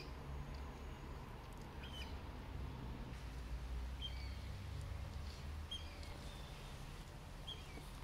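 A few short, high bird chirps, one every second or two, over a steady low rumble.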